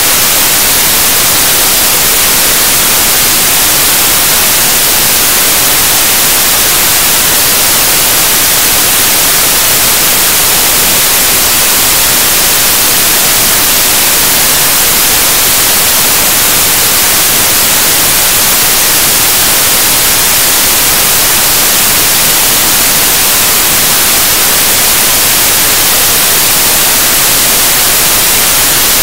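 Loud, steady static hiss like white noise, brighter toward the top, unchanging throughout, with no speech or other sound in it.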